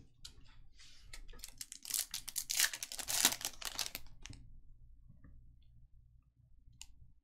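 Trading-card pack's foil wrapper torn open and crinkled, the crackle loudest about two to four seconds in. Then a few light clicks and rustles as the cards are handled.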